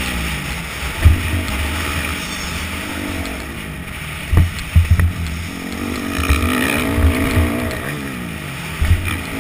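Yamaha YZ250F four-stroke single-cylinder motocross engine, heard from the rider's helmet, revving up and falling back again and again as he rides through the gears. Several sharp low thumps break in, about a second in, twice around the middle and near the end.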